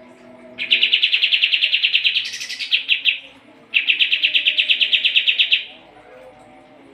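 Pied triller (kapas tembak) singing two rapid trills of about ten notes a second. The first trill briefly climbs higher near its end.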